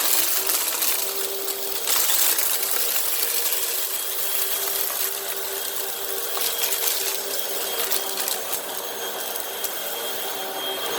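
Hoover WindTunnel High Capacity Pet upright vacuum running on carpet, its motor's steady whine mixed with a rattling crackle of sand, grit and broken candy being sucked up.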